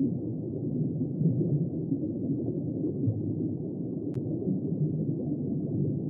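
Muffled underwater ambience: a steady, low wash of noise with nothing in the high range, and one faint tick about four seconds in.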